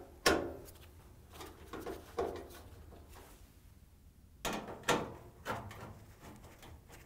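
Scattered clicks and knocks of a hex-head screw and a quarter-inch nut driver against a dryer's sheet-metal front bulkhead as the screw is set in its hole and the driver is fitted on. The sharpest knock comes just after the start, with a few lighter taps after it and another cluster of knocks about four and a half seconds in.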